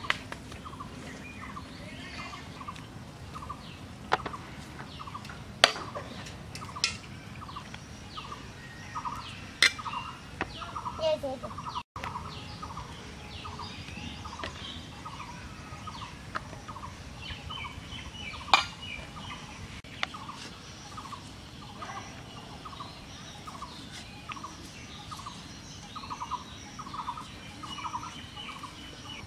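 A bird calling a short note over and over, about twice a second, with a few sharp knocks here and there.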